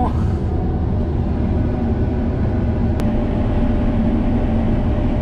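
Combine harvester's engine and machinery running steadily, heard from inside the cab, with one sharp click about three seconds in.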